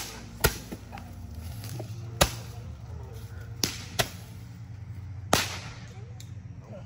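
Firework bangs: about six sharp cracks at irregular intervals, some trailing off in a brief echo, over a steady low hum.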